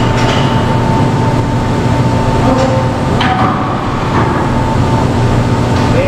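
Steady loud industrial machinery noise in a precast concrete plant: a continuous rumble with a constant whine, and a few metallic knocks about three seconds in.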